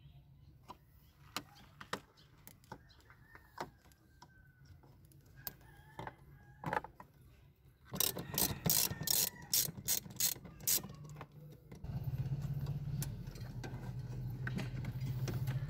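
Hand ratchet clicking as the hose clamp on a car's air intake duct is loosened: scattered single clicks at first, then a quick run of loud clicks about eight seconds in. A steady low hum comes in for the last few seconds.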